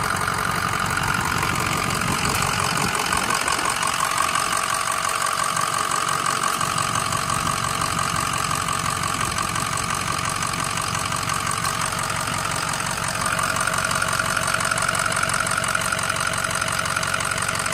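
Ford 6.0 Powerstroke V8 turbodiesel idling steadily, heard close up under the open hood; it grows a little louder about thirteen seconds in.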